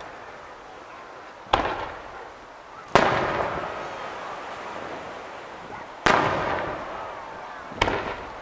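Aerial firework shells bursting overhead: four sharp bangs, each trailing off in a long fading echo.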